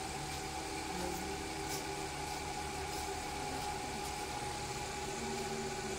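Steady hum of an evaporative room air cooler's fan motor running, with a constant whine over it.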